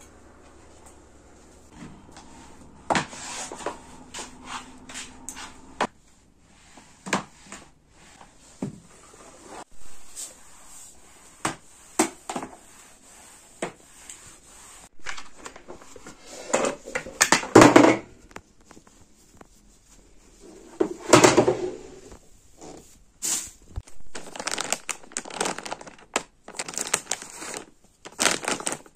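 Scattered plastic clicks and knocks and crinkling rustles: a flat floor mop is handled and pushed across a laminate floor, and wet cleaning wipes are drawn from a soft plastic packet. There are a few louder rustling bursts past the middle.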